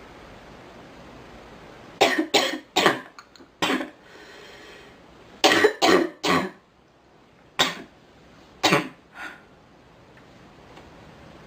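A girl coughing in short fits: four quick coughs about two seconds in, three more a few seconds later, then two or three single coughs, the last one weaker.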